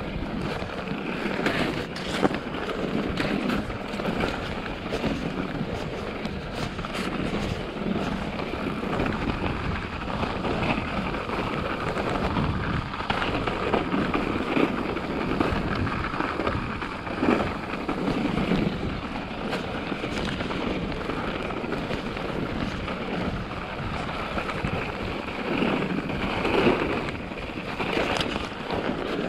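Mountain bike ridden over a snowy trail: steady wind noise on the microphone and tyre noise on snow, with frequent knocks and rattles from the bike over bumps.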